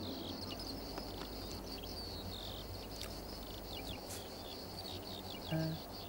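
Outdoor ambience of small birds chirping in quick, short calls over a steady low background hum. A short pitched sound comes near the end.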